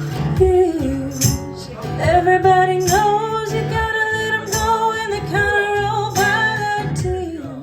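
Folk song played by a small band: a voice singing over strummed acoustic guitar, with a tambourine keeping the beat.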